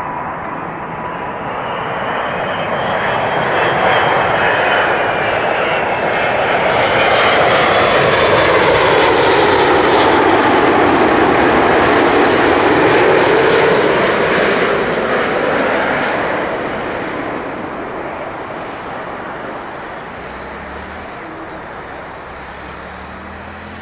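Airbus A380's four jet engines at approach power as the airliner passes low overhead on final approach. The sound builds to its loudest around the middle and then fades slowly as the plane moves off toward the runway, with a slow phasing sweep through the tone.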